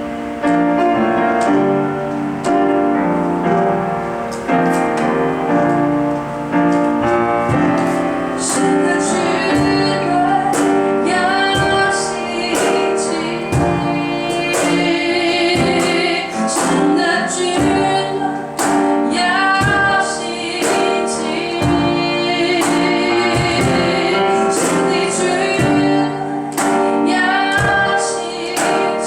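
Gospel-style worship song with a female singing voice over a band; from about eight seconds in, sharp percussion hits join in.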